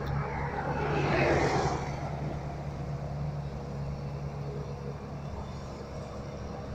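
Diesel engine of a SANY crawler excavator running with a steady low hum that weakens about five seconds in. A rushing noise swells and fades between about half a second and two seconds in.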